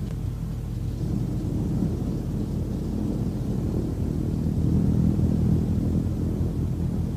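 Low, rough rumble of a piston-engine propeller aircraft running, swelling about a second in.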